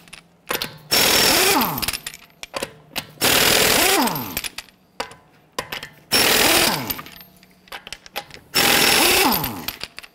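Air impact wrench loosening and spinning off wheel lug nuts: four short bursts about two and a half seconds apart, each dying away in a falling whine, with small clicks in between.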